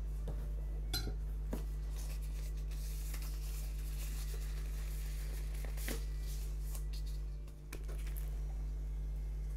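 Cutting-board prep sounds: a few light knocks of a kitchen knife and hands on a bamboo cutting board, and a stretch of crinkly rustling in the middle as raw pork loin slices are handled and laid out, over a steady low hum.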